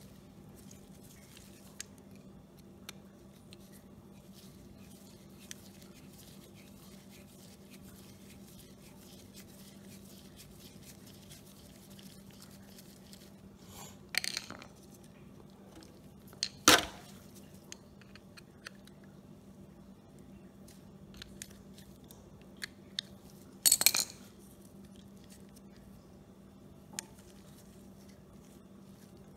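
Small carburetor parts and a screwdriver clinking and tapping as they are handled and set down in an aluminium foil pan. A few sharp clinks come about 14, 17 and 24 seconds in, the one near 17 seconds loudest, with softer ticks between them and a faint steady hum underneath.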